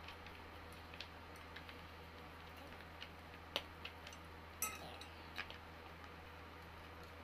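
A few scattered light clicks and clinks of small chair-assembly hardware being handled on a table, one of them followed by a brief rustle, over a steady low hum.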